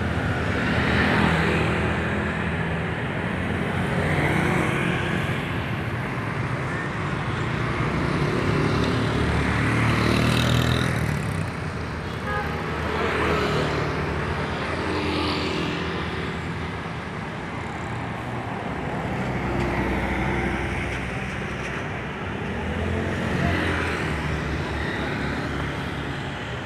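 Street traffic: motorcycle engines passing one after another, the noise swelling and fading every few seconds over a continuous traffic hum.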